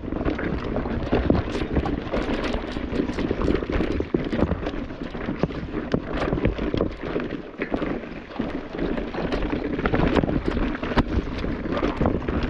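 Electric mountain bike rolling over a rocky trail: tyres crunching over stone while the bike rattles with many quick, irregular clicks and knocks, and wind buffets the microphone with a steady rumble.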